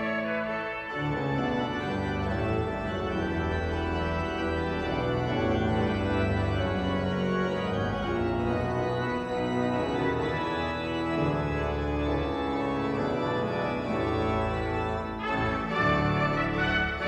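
Church pipe organ playing a classical piece on its own, with full chords over a strong bass line; a trumpet comes back in near the end.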